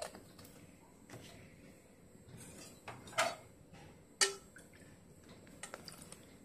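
A few faint clinks and knocks of kitchen utensils and a small glass bottle around a stainless steel mixing bowl, the two loudest a little after the middle.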